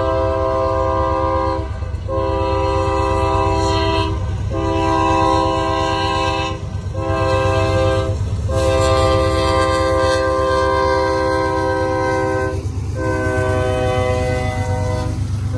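Diesel locomotive's multi-note air horn sounding a run of long blasts broken by short gaps as the train approaches a grade crossing, over the train's low rumble.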